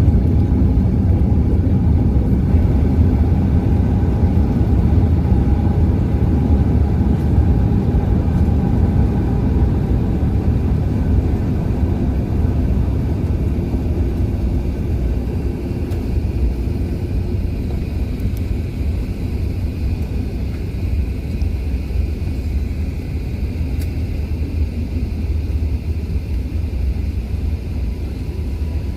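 Steady rumble of an Airbus A380's engines and airflow heard inside the passenger cabin, easing off gradually. A faint whine fades out about ten seconds in.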